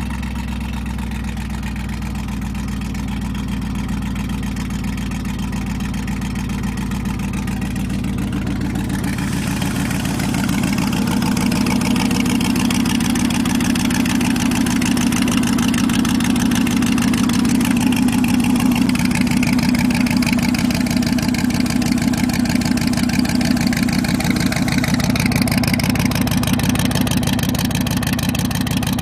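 Pontiac Firebird's swapped-in 5.3-litre V8 idling steadily just after a cold start in the snow. It grows a little louder and brighter about ten seconds in.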